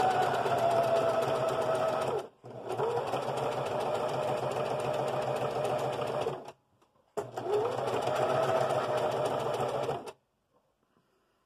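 Singer electric sewing machine stitching appliqué in three runs, its motor hum rising in pitch as each run starts. It stops briefly about 2 and 6.5 seconds in as the work is pivoted, and stops for good about 10 seconds in.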